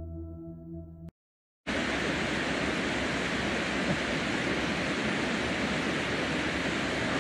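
A singing-bowl tone in the background music fades in the first second, then after a brief cut to silence comes the steady rush of water spilling over a river dam.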